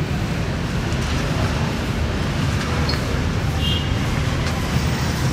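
Steady low rumble of outdoor street and market ambience, with faint short high chirps about three and four seconds in.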